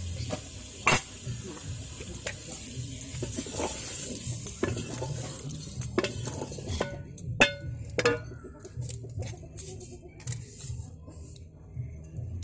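Vegetables being stirred and turned in a metal cooking pot, the spatula scraping and knocking against the pot at irregular intervals, over a sizzle of hot oil. The sizzle fades about halfway through, and there are a few sharp, louder knocks.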